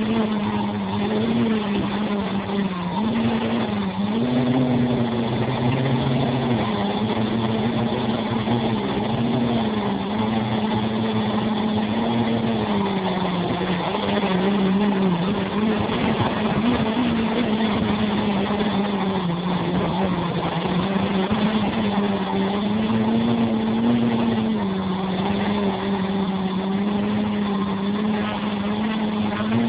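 Loud, close buzz of a quadcopter's motors and propellers in flight, picked up by a phone mounted on the frame. Its pitch wavers up and down as the throttle changes.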